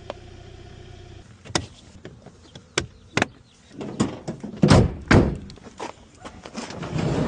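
A steady hum that stops about a second in, then a few sharp clicks and two heavy thuds, with more knocking near the end.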